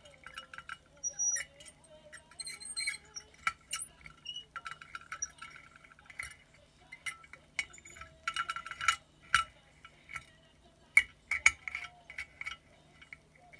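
Plastic model-kit parts and a thin rod clicking and clinking against the inside of a glass bottle while a winged part is pushed into place: irregular light taps in clusters, busiest about eight to nine seconds in and again about eleven seconds in.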